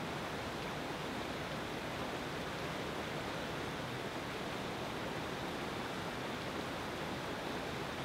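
Fast river rapids, turbulent whitewater rushing over rocks in a steady, unbroken rush.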